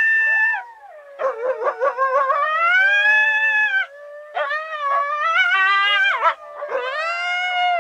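Coyotes howling and yipping: several overlapping voices in long, wavering howls that rise and fall, broken by quick runs of short yips.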